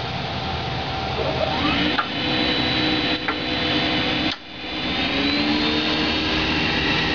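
Rinnai 2520 tankless water heater restarting after being unplugged to reset a flame-failure error, its combustion fan whirring steadily with a pitch that rises as it spins up. About four seconds in the sound drops out briefly, then the fan spins up again and runs steadily.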